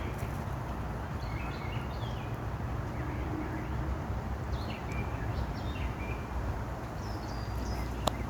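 Outdoor background with a steady low rumble and a few short, high bird chirps scattered through it, then a single sharp click near the end.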